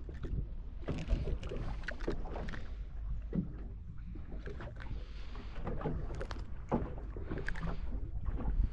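Water lapping and slapping against the hull of a small boat, in irregular knocks and splashes, over a steady low wind rumble on the microphone.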